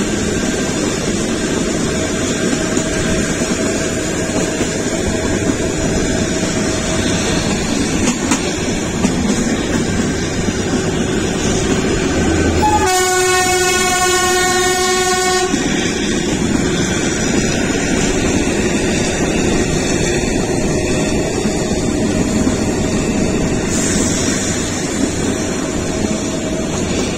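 Kalka–Shimla narrow-gauge toy train running, with a steady rumble and clatter of wheels on rails. About halfway through, the train's horn sounds once for about two and a half seconds.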